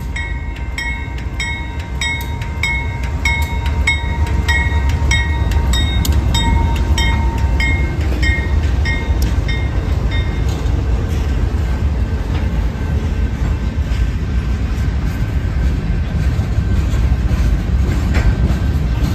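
Freight train passing close by: diesel locomotives running, then empty covered hopper cars rolling past with a steady low rumble of wheels on rail. Through the first ten seconds a bell-like ringing repeats about three times a second, dipping slightly in pitch and fading out as the locomotives go by.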